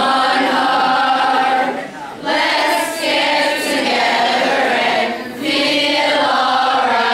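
A group of children's voices singing together in unison, in sung phrases broken by brief pauses about two and five seconds in.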